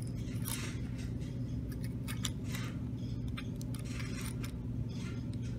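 A thin metal tool scraping and clicking against a freshly built wire coil on a vape atomizer's build deck, in short scratchy strokes in several clusters, to even out the coil's hot spots. A steady low hum runs underneath.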